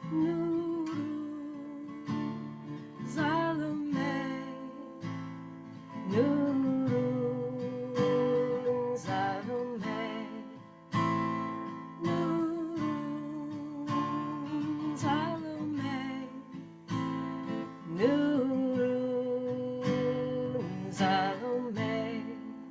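Strummed acoustic guitar playing a devotional chant accompaniment, with a voice singing long held notes without words, one starting about six seconds in and another about eighteen seconds in.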